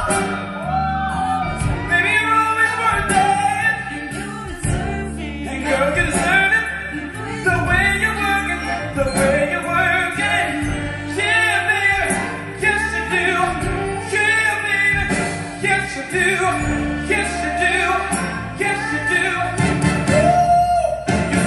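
Live stage-show music: a singer on a microphone over instrumental accompaniment.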